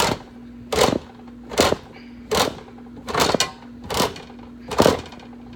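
Hand-cranked can opener cutting round the lid of a tall metal can of tomato juice, a sharp crunch with each turn of the crank, about one every 0.8 seconds.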